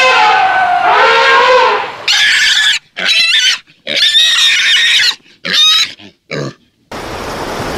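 An elephant's trumpet call trails off over the first two seconds, then a domestic pig squeals in about five short, loud bursts.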